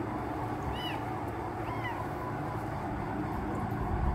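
Cat eating wet food from a stainless steel bowl, with two short high chirping calls about a second apart over a steady background hum.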